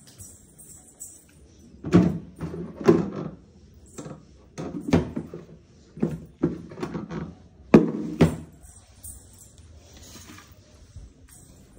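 A series of about a dozen sharp knocks and thuds over some six seconds, the loudest about two, three and eight seconds in, as objects are handled and set down, followed by fainter handling sounds.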